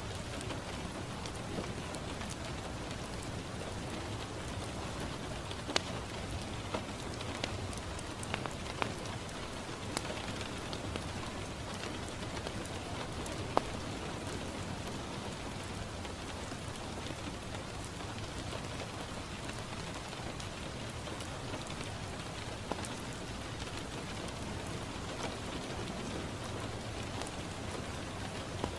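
Steady rain falling on a window, with scattered sharp pops from a crackling wood fire in a fireplace.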